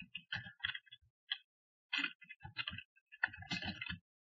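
Computer keyboard typing: faint, quick, irregular runs of key clicks.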